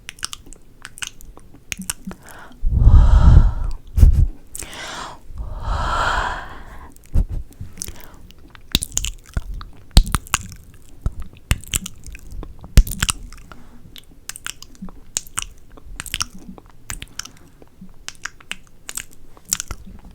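Close-miked ASMR mouth sounds: a steady run of wet clicks and kiss sounds, broken by two longer, louder rushing sounds about three and six seconds in.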